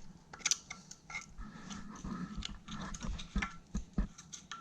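Light metallic clicking and scraping of a tool working around a snap ring in a wheel hub's groove to pry it out, with small ringing clinks of steel on steel.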